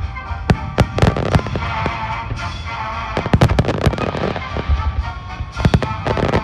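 Aerial firework shells bursting in quick succession: a string of sharp bangs and crackles, coming thickest about three to four seconds in and again near six seconds.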